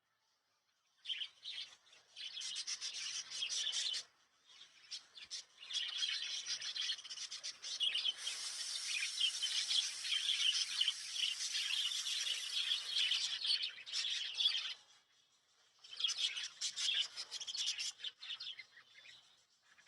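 Small caged parrots, lovebirds and budgerigars, chattering and chirping rapidly together. The chatter stops briefly about four seconds in and again around fifteen seconds.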